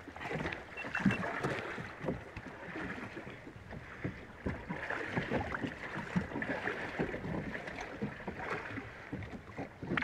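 Sea water sloshing and lapping against a small boat's hull, with irregular small knocks and splashes.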